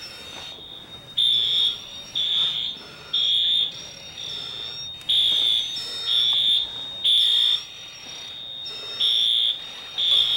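School fire alarm sounding in the temporal-three evacuation pattern: three loud, high-pitched beeps about a second apart, then a pause, repeating. A weaker continuous high tone runs beneath.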